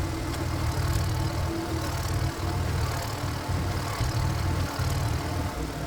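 Power tiller's single-cylinder diesel engine running steadily with a low, rapid chugging, the engine that drives the wood-splitting work on tough acacia logs.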